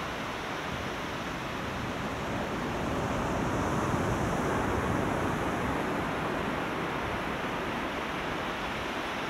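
Ocean surf washing in: a steady rush of noise that swells through the middle few seconds and eases off again.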